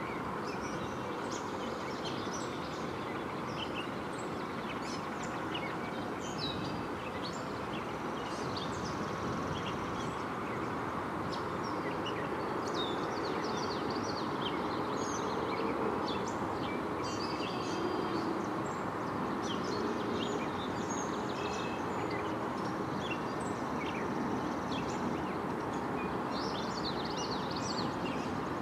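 Small birds in a cattail marsh chirping and calling over and over, many short high notes, over a steady low background hum.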